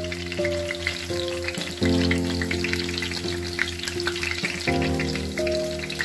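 Okoy, shrimp and sweet potato fritters, frying in hot oil with a steady crackling and popping sizzle, heard over background music.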